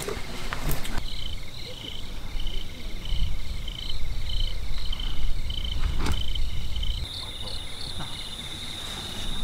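Night insects, crickets or similar, chirping in a steady pulsed rhythm of about two chirps a second; about seven seconds in the sound changes to a denser, continuous high trill. A low rumble runs underneath, with a single sharp click about six seconds in.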